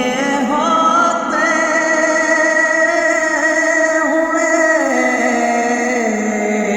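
Wordless vocal backing of a naat: layered voices humming long, held notes that shift slowly in pitch.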